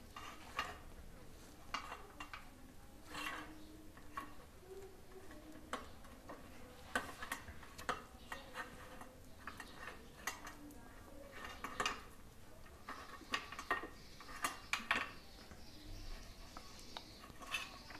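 Faint, scattered taps, clinks and scrapes of a small steel mesh strainer against a stainless-steel bowl as hands untie and unwrap a cloth bundle of strained curd.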